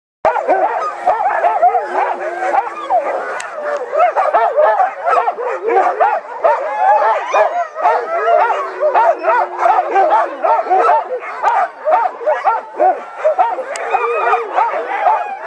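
A team of harnessed sled dogs barking and yelping all at once in a dense, unbroken din, with a long drawn-out howl rising out of it now and then.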